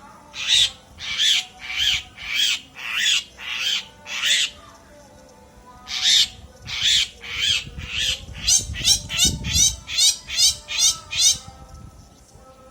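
A bird singing loud, repeated high notes, about one every half second or so. After a short pause it gives a quicker run of warbling notes that stops near the end.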